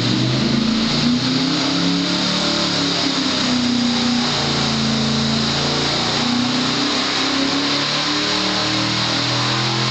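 Shafiroff 582-cubic-inch big-block Chevrolet V8 running steadily on an engine dyno at a fast idle, warming up to operating temperature, its pitch wavering slightly up and down.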